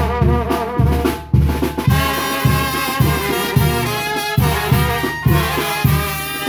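Live Mexican banda playing an instrumental passage: trumpets and trombones carry the melody over a bass beat pulsing about twice a second.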